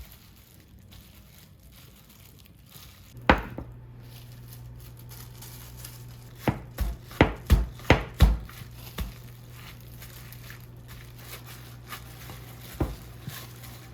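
Knife chopping on a cutting board: a single knock, then a quick run of about seven chops, about three a second, and one last chop near the end, over a steady low hum that starts with the first knock.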